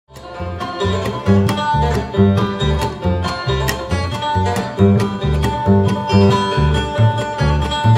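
Instrumental ensemble music with plucked strings over a steady, pulsing bass line and a held melody note, starting abruptly from silence.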